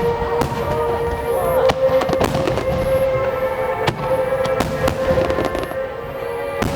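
Aerial fireworks shells bursting one after another, a dense run of sharp bangs and crackles, over music with long held notes.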